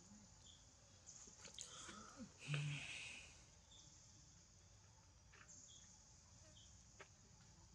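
Near silence: faint outdoor ambience with a high buzz that comes and goes, a few light clicks, and one brief louder sound about two and a half seconds in.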